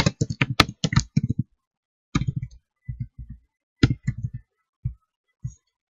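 Computer keyboard typing: a fast run of keystrokes in the first second and a half, then short groups of key presses with brief pauses between them.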